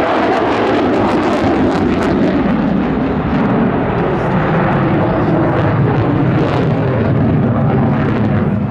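F-35A Lightning II's Pratt & Whitney F135 turbofan, loud and steady, as the jet pulls up into a near-vertical climb. It is a dense jet roar with a faint ragged crackle on top.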